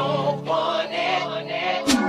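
Background music: a pop song with a singing voice.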